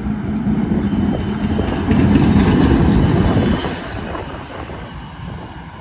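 PCC streetcar passing close by: a steady hum with the wheels clicking over rail joints, loudest from about two to three and a half seconds in, then fading as the car moves away.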